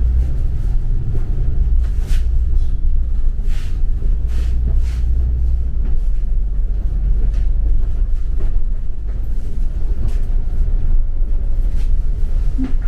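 Cabin noise of a moving double-decker bus: a steady low engine and road rumble, with scattered short clicks and rattles.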